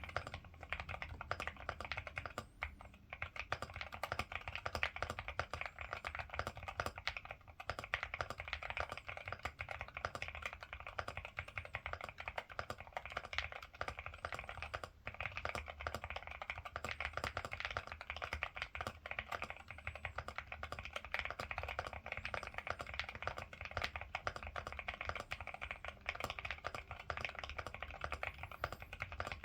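Ciddo V65 V2 mechanical keyboard with Akko Rosewood switches being typed on fast and without a break, a dense run of keystroke clacks with a few short pauses.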